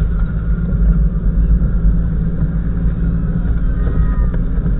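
Off-road 4x4 vehicle's engine running with a steady deep rumble.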